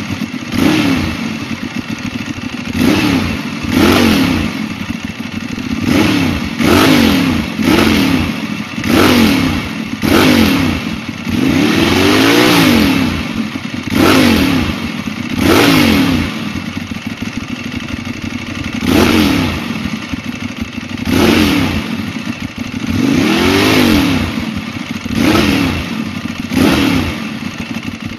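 Ducati 1098's L-twin engine through a MIVV Suono slip-on exhaust, idling and blipped over and over: more than a dozen quick revs that rise and fall back to idle, two of them held a little longer.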